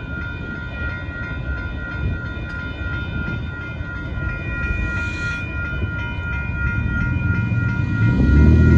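Union Pacific intermodal freight train's cars rumbling past at speed, with a steady high-pitched ringing tone over the rumble. Near the end a road vehicle's engine comes up louder and the ringing stops.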